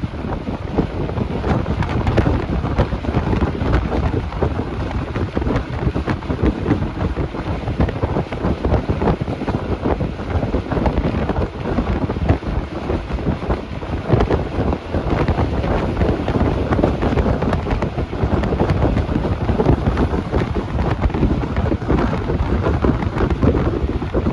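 A bus on the move: engine and road noise from inside the cabin, with wind buffeting the microphone and a steady rattle.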